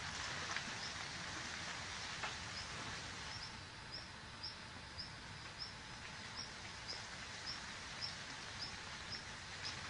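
Outdoor ambience: a steady hiss with a short, high chirp repeating about twice a second, and a few soft clicks.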